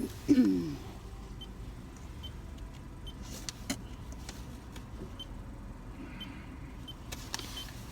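Steady low rumble inside a car's cabin. About a third of a second in comes a short vocal sound falling in pitch, the loudest thing here. A few faint clicks follow later.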